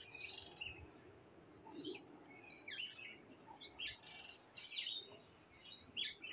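Faint birds chirping: short high calls repeating every half second or so.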